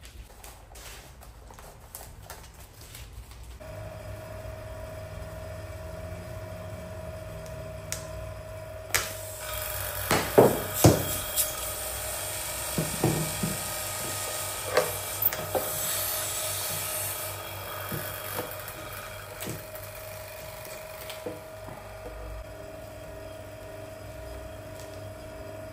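Small vacuum pump running steadily, drawing the infusion bag down under vacuum. Over it, between about 9 and 17 seconds in, come loud crinkles and clicks as the plastic bagging film and tubing are handled.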